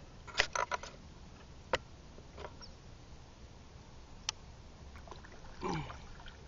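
Kayak paddling on calm water: scattered sharp clicks and knocks from the paddle, several close together about half a second in and single ones later, then a short watery paddle sound falling in pitch near the end.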